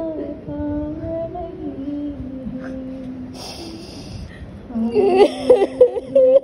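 A single voice singing a devotional salam without instruments, holding long notes that glide from pitch to pitch, with a short hiss about halfway through and a louder, more ornamented phrase near the end.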